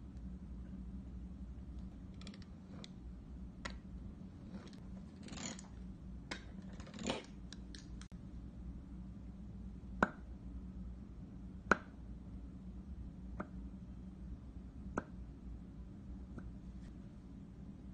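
Small plastic Play-Doh tools cutting and pressing into soft modelling dough on a wooden tabletop. Soft scrapes come first, then a few sharp clicks several seconds apart as a stamp is pressed down, over a steady low hum.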